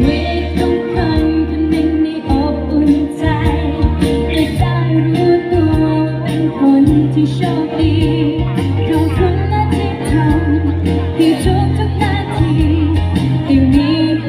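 A girl singing a Thai pop song into a microphone over a recorded backing track with a steady beat and bass, played through stage loudspeakers.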